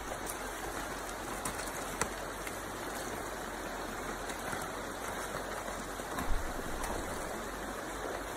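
Steady rushing of river water, with a couple of faint knocks.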